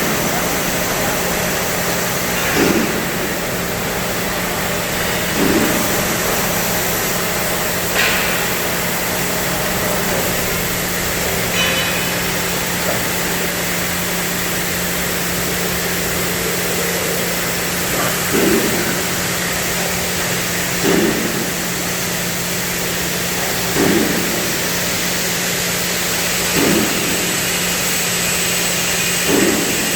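CNC gas and plasma cutting machine running with a steady hiss and hum, and a short knock every two to three seconds.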